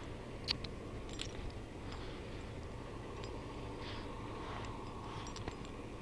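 Faint scattered clicks and soft rustles from a small dog moving about and playing, over a low steady hum.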